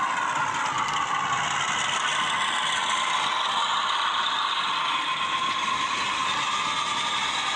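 The DCC sound decoder in a Bachmann Class 42 Warship model running, playing a Legomanbiffo recording of the diesel-hydraulic's engine and hydraulic drive through a small speaker. Its engine note dips slightly in the first second or two, then holds steady, over the light mechanical clatter of the model running on its track.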